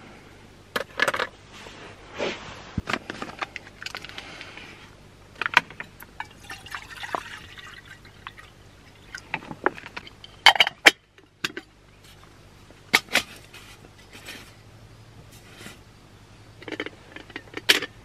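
Aluminium camping cook set being handled and put together: repeated metal clinks and knocks of pots, lids and stove parts, with liquid being poured in between.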